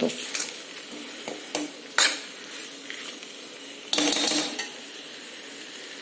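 Steel ladle stirring sprouted pulses in a metal kadhai, scraping and knocking against the pan, with a sharp knock about two seconds in and a longer scrape about four seconds in, over a faint steady sizzle of the spiced mixture frying.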